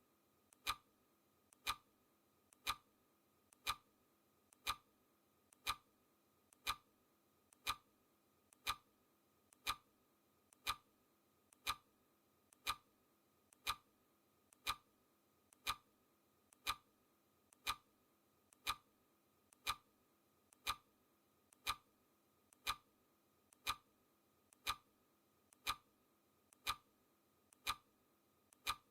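Clock ticking steadily, one tick each second, each tick with a faint click just before it.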